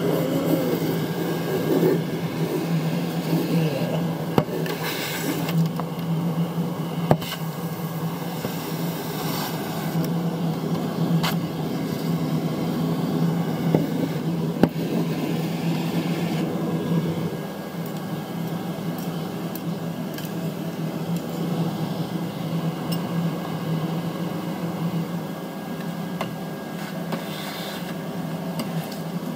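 A steady low mechanical hum, like a small motor or fan, that drops slightly in level about two-thirds of the way through. A few sharp clicks and brief rustles from objects being handled sit over it.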